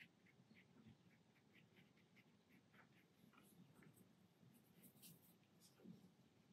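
Near silence, with a few faint, sparse light scratches and taps from a watercolour brush at work.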